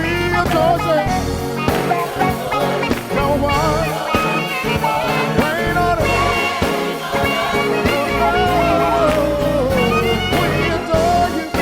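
Live gospel music: a band playing, with a melodic line winding up and down over it, much like a singer's runs.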